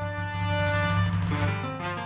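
Intro theme music: a held chord over a steady deep bass, swelling about a second in and moving into a run of quicker, changing notes.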